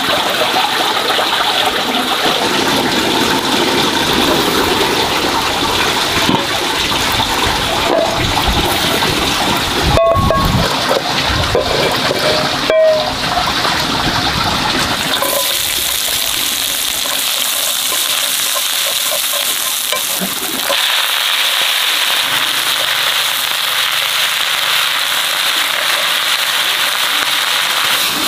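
Water splashing and pouring as a metal pan and bowl are rinsed out, with two clanks of metal cookware around the middle. Then a steady hiss from a pan over a wood fire, growing brighter in the last third as greens sizzle, frying in the pan.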